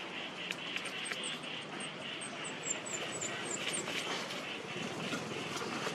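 Outdoor rural ambience: a steady noise bed with a pulsing high buzz, and a quick run of about ten short, high, falling chirps in the first half.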